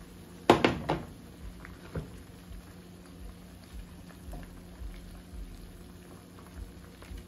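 Pot of snow crab legs boiling in a beer, garlic and butter broth while a wooden spoon stirs them. A few loud clattering knocks about half a second in and another near two seconds, with soft bubbling between.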